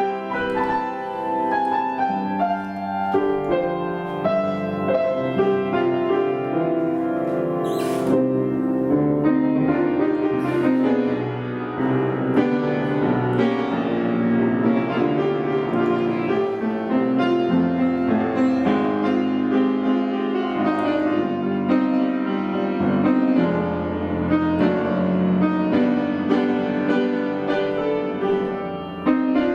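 Instrumental music led by piano, playing continuously.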